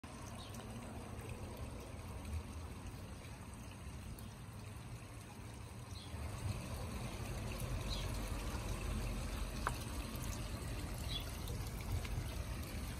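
Small garden birdbath fountain trickling and splashing steadily into its stone basin, louder from about halfway through, with a few faint short high chirps.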